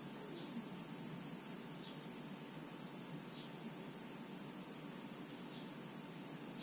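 Steady high-pitched drone of a summer insect chorus, with a few faint short chirps over it.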